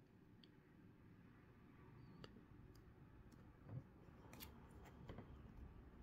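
Faint handling of plastic-sleeved baseball cards: a few soft clicks and light taps as the cards are held up and swapped between the hands, with a low soft bump a little before four seconds in.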